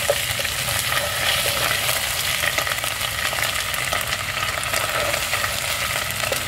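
Onions frying in hot oil in a pot, sizzling steadily while a wooden spatula stirs them and scrapes the pot with small ticks.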